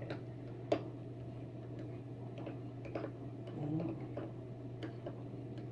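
Light, irregular clicks of a spoon knocking against a plastic pudding snack cup as food coloring is stirred into vanilla pudding, over a steady low hum.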